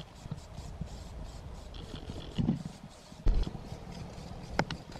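Aerosol spray-paint can hissing in short bursts onto a metal speaker frame, with a sharp knock about three seconds in and two clicks near the end.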